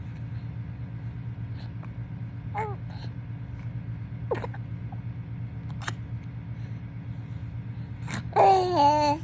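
A three-month-old baby hiccuping, a few short sharp hics, with small vocal sounds and a longer babbling sound near the end, over a steady low hum.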